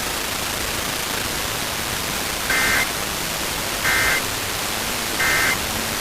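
Steady radio static hiss, then three short Emergency Alert System data bursts in the second half, evenly spaced: the warbling two-tone end-of-message (EOM) code sent three times to close the test alert.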